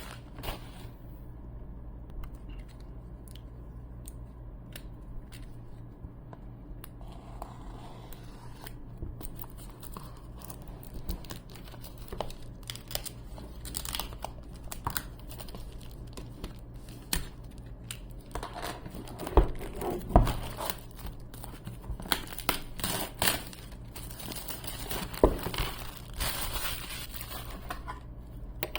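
A product box being unboxed by hand: packaging crinkling and tearing, with scrapes and irregular sharp knocks as pieces are handled, several louder knocks in the second half, over a steady low hum.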